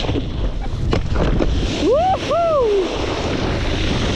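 Wind buffeting the microphone over rushing water, a steady noisy rumble. About two seconds in comes a short two-part call, the first rising and the second falling in pitch.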